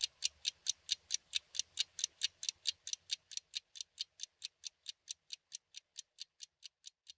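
Pendulum clock ticking evenly, about four or five ticks a second, fading away gradually.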